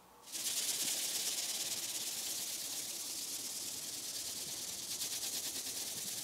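Wet sanding by hand: P400 wet-and-dry paper on a sanding block rubbed back and forth over a wet car bonnet coated with dried fine body filler, a steady high-pitched rubbing that starts just after the beginning and stops right at the end.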